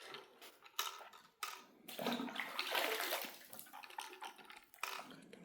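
Water sloshing and splashing in a cave pool as a person moves through it, in several irregular surges.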